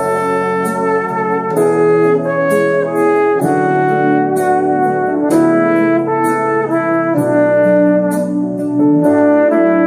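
Instrumental passage of a Korean ballad: a held, horn-like melody line over a steady drum beat and bass, with no singing.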